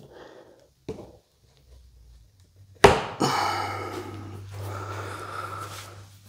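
A level set down on a clamped walnut slab with a sharp knock about three seconds in, followed by about three seconds of scraping noise with a low hum under it. Two faint knocks come earlier.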